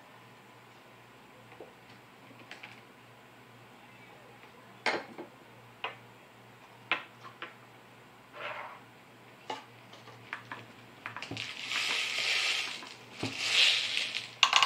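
Light scattered taps and clicks of small items set down on a wooden tabletop, then a few seconds of scratchy rustling handling noise near the end.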